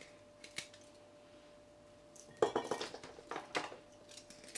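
Small knife cutting crab apples in half by hand over a brass tray: scattered light clicks and clinks of the blade and fruit, busiest about two and a half seconds in. A faint steady hum lies under it.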